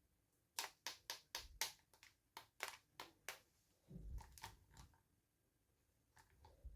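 Small plastic toy pieces and packaging being handled: a quick run of about ten sharp clicks and taps, then a soft low bump with a light rustle, and a few fainter clicks near the end.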